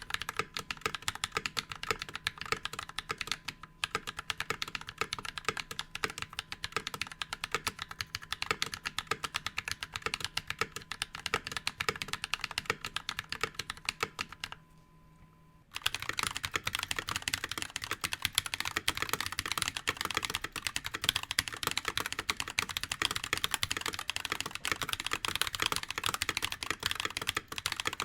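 Fast typing on a NovelKeys NK65 keyboard with Glorious Panda tactile switches, keystrokes clacking in rapid succession. The typing stops for about a second halfway through and resumes louder.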